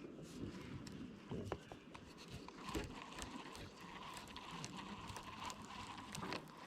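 Faint scattered knocks and clicks around a small fishing boat, with a faint steady hum from about three seconds in until near the end.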